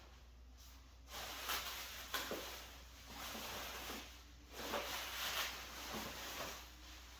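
Rustling and crinkling of packing material as parts are handled and unwrapped from a shipping box, in several irregular bursts with a sharp click a little after two seconds.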